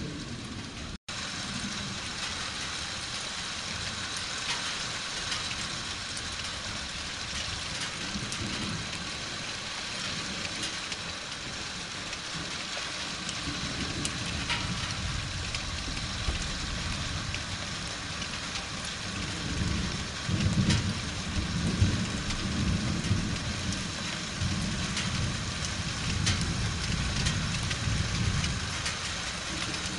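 Steady rain falling with fine drop patter, and low rolling thunder that builds in the second half and is loudest about two-thirds through.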